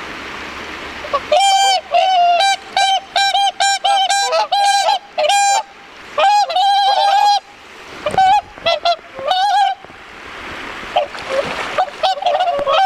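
Swans calling: a rapid run of loud, pitched honks from about a second in, thinning after about seven seconds into scattered calls and fainter ones near the end.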